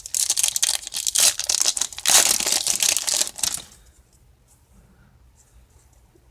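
Paper wrapper of a baseball card pack being crinkled and torn open, a loud crackling rustle that stops about four seconds in, leaving only faint light ticks.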